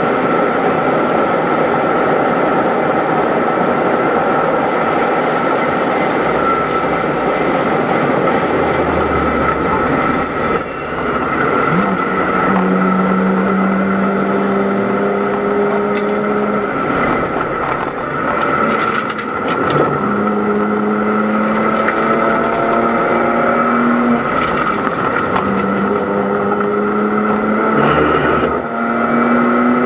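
Race car's inline-six engine and cabin noise at speed: a dense rush of wind and road noise at first, then the engine holding steady revs that climb slowly, broken by gear changes about four times in the second half, with a steady high whine throughout.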